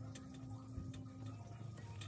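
Faint background music of soft, sustained notes, with a few light ticks.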